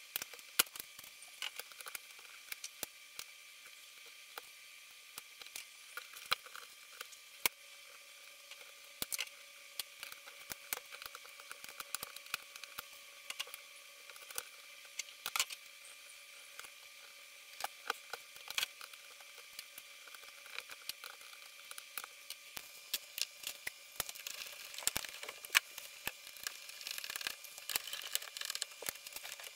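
Scattered small clicks, taps and rustles of gloved hands handling electrical wire and a screwdriver while wiring breaker and inverter terminals, over a faint steady tone. The handling gets busier near the end.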